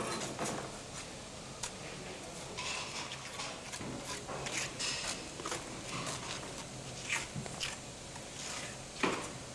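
Faint, scattered scrapes and soft knocks of a small trowel working lime mortar: scooped from a bucket onto a hawk board, then pressed onto the damaged patch of wall, with a sharper scrape near the end.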